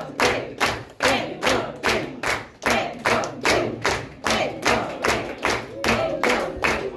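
Audience clapping together in a steady rhythm, about two and a half claps a second, with a few voices calling out.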